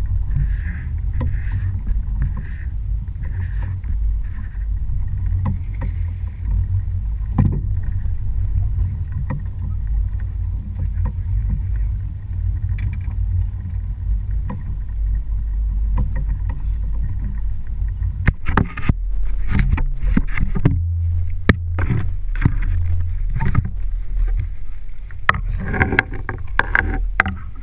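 Steady low rumble of wind and water aboard a small fishing boat at sea. From about two-thirds of the way in, sharp knocks and thuds break in, clustered near the end, as a landed tuna is handled on the fibreglass deck.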